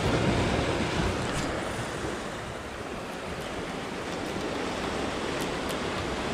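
Small sea waves washing and breaking against shoreline rocks, with wind buffeting the microphone. A few faint high ticks sound over the steady wash.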